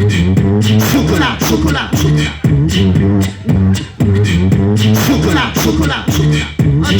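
Beatboxing: vocal kick and snare hits over a low sung bass line, repeating as a steady looped groove about every second and a half.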